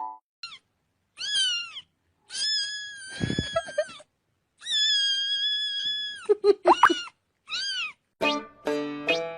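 A cat meowing repeatedly, about six calls, some short and arching up and down, two long and drawn out. Music starts up near the end.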